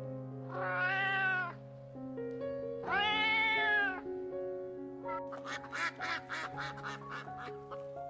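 Domestic cat meowing: two long meows about two seconds apart, each rising and falling in pitch, followed about five seconds in by a quick run of short chirps. Background music with sustained notes runs underneath.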